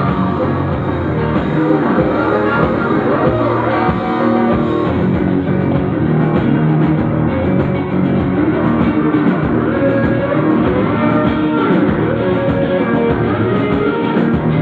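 Live rock band playing with no vocals, an acoustic guitar strummed over drums, recorded from the crowd through a pocket camcorder's microphone, which makes it sound dull.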